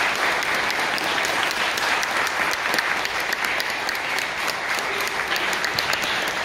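A crowd of guests applauding, many hands clapping at once in a steady, even applause.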